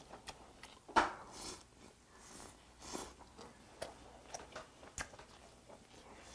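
Quiet eating sounds: chopsticks and a spoon clicking against a metal pot of braised dried pollock, with chewing. One sharp click about a second in is the loudest, followed by a few fainter ones.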